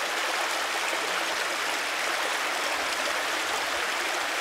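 Shallow rocky stream running over stones and small cascades: a steady rush of water.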